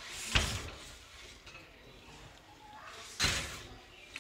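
White-breasted waterhens calling in a cage: two loud, harsh bursts, one just after the start and another about three seconds later, each dying away quickly.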